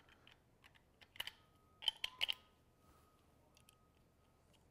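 Light metallic clicks from a Ruger single action revolver as its cylinder is refitted and handled: a few scattered clicks, the loudest a pair about two seconds in.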